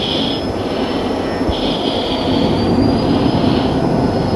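Steady roar of jet engine and airflow heard inside an F-16's cockpit in flight, with a thin steady high whine above it.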